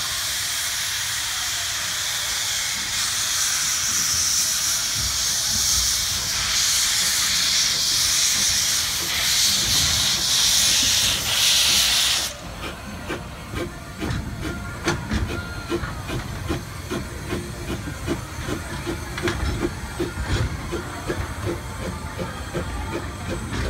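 Small saddle-tank steam switcher locomotive blowing steam from its open cylinder cocks in a loud, steady hiss, which cuts off sharply about twelve seconds in. The engine then moves slowly along the track with a run of low knocks and clanks.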